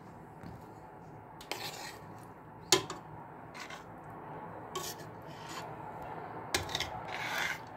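Metal spoon stirring the stewed green beans in a stainless steel pot, scraping against the pot with soft strokes and one sharp clink about three seconds in.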